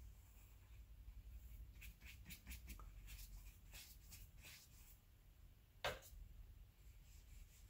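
Faint, soft scratchy strokes of a wet flat watercolour brush brushing clean water over sketchbook paper, a quick run of strokes in the first half, then a single sharp tap about six seconds in.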